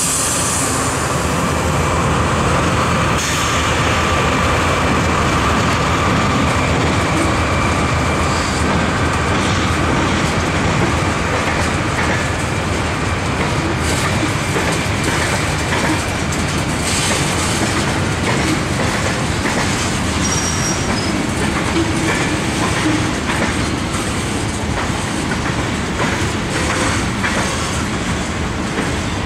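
Freight train cars rolling steadily past, with continuous wheel-on-rail rumble and clacking of wheels over the rail joints.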